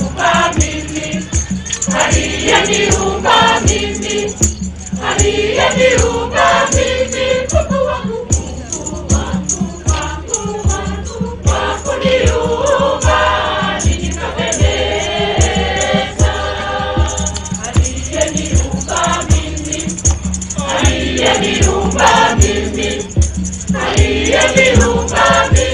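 A choir singing a gospel song, backed by a steady drum beat and a rattling shaker.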